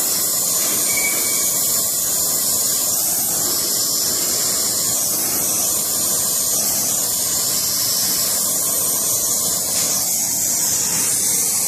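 Gas brazing torch flame hissing steadily as it heats a brass adapter and copper pipe joint, preheating both to red heat for silver brazing.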